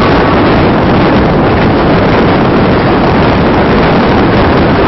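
Loud, steady rush of wind on the microphone mixed with the running noise of the moving Tezgam Express passenger train, its wheels rumbling on the rails, heard from an open window of the train.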